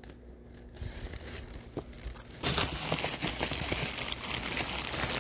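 Hands rummaging through foam packing peanuts and a plastic bag in a shipping box. A few faint clicks come first, then dense crinkling and rustling starts about two and a half seconds in.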